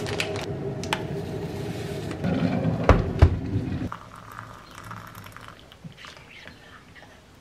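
A steady hum with a few clicks and a couple of knocks, which stops abruptly about four seconds in. After it, hot water trickles from a kettle into a ceramic cup of coffee, and a teaspoon stirs it.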